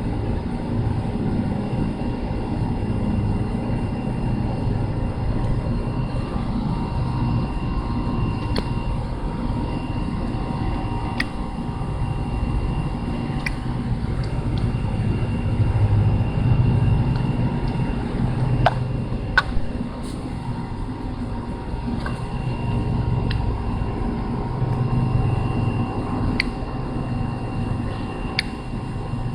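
Steady low mechanical drone, like a distant engine, with a thin high tone that comes and goes and a few scattered sharp clicks.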